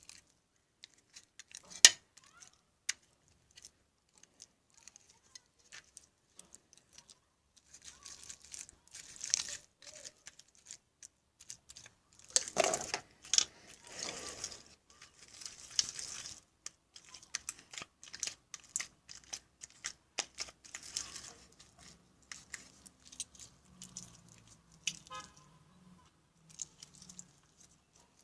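Glue-and-borax slime being kneaded and pulled apart by hand, giving irregular short bursts of wet, clicking noise with pauses between. The slime has too much borax solution in it.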